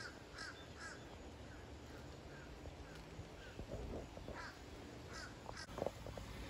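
Faint bird calls: short, harsh calls repeated in quick runs of two or three, with a few soft rustles and knocks near the end.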